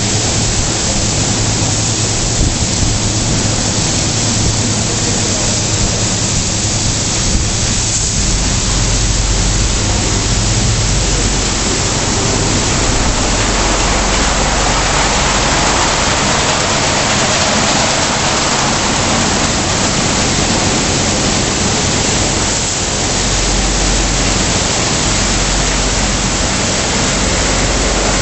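Automatic tunnel car wash running on a van: water jets spraying and cloth brushes spinning, a loud, steady rush of water with a low machine hum under it in the first part.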